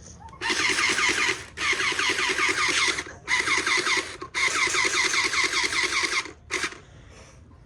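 Fun in the Sun Electric Water Blaster's battery-powered pump motor buzzing as it fires water, in four long bursts of a second or two each and a short burst near the end, each with a fast pulsing rattle.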